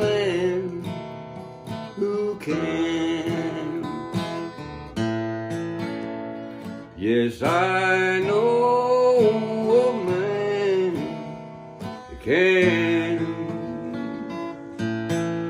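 A man singing a slow gospel song to his own strummed acoustic guitar, drawing out long held notes. His voice drops out about three-quarters of the way through and the guitar strums on alone.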